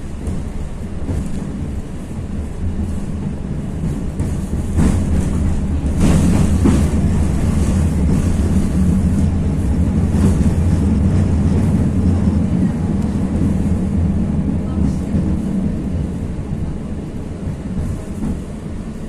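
71-623-02 (KTM-23) tram running along its track, heard from inside the car: traction-drive hum and wheels on rails, growing louder over the first six seconds as it picks up speed, with a few clicks from the wheels.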